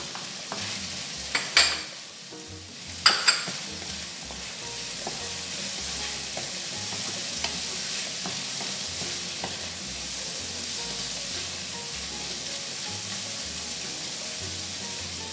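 Diced bacon and vegetables sizzling in a nonstick wok as a wooden spatula stirs them. There are a few sharp knocks in the first three or four seconds, then a steady frying hiss.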